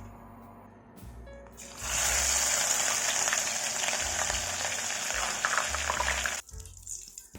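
Tap water running into a sink for about four and a half seconds, starting about two seconds in and cutting off suddenly.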